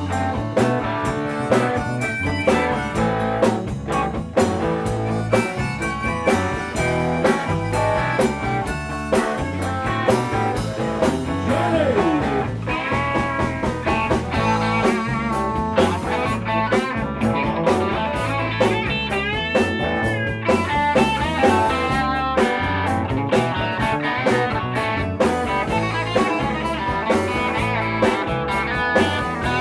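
Live blues-rock band playing an instrumental stretch on electric guitars, electric bass and drum kit, amplified through stage amps. An electric guitar bends notes in pitch at points over the steady bass and drums.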